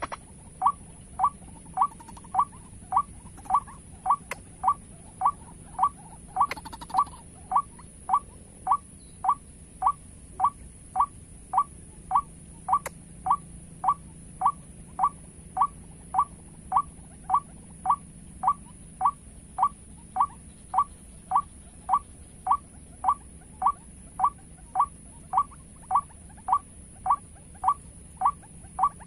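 White-breasted waterhen call played as a trapping lure: a short rising note repeated evenly, just under twice a second, with a steady high-pitched whine behind it.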